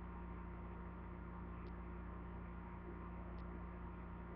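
Quiet room tone: a steady low electrical hum under a faint hiss, with a faint high tick repeating roughly every second and three quarters.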